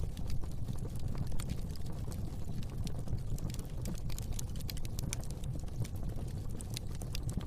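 Wood fire burning in a fireplace: many irregular sharp crackles and pops over a low, steady rumble of the flames.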